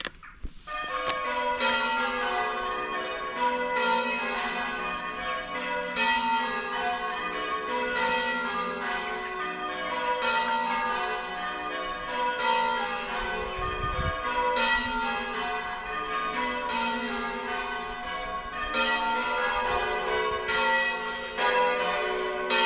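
A ring of six church tower bells being rung in changes. The bells start about half a second in and go on as a steady, continuous run of overlapping, ringing strikes.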